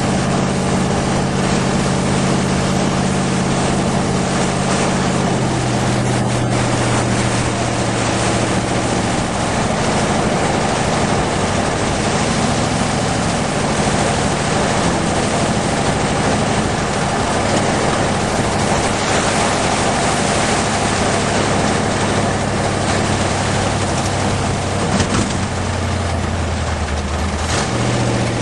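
Hot rod's engine running under way at cruising speed, heard from the open car with heavy wind and road noise. The engine note shifts about five seconds in and drops lower near the end as the car slows.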